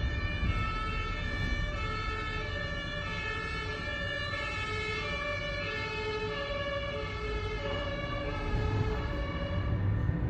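Tatra KT4Dm tram's electrical drive equipment sounding a string of short, steady electronic tones that jump up and down in pitch, over a low running rumble.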